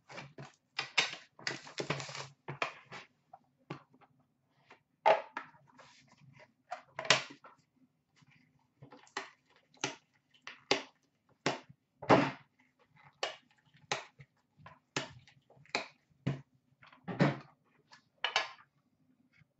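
A cardboard box of trading cards being opened and the cards handled, a run of short scrapes, rustles and clicks: a quick flurry at first, then about one every second. A faint steady hum runs underneath.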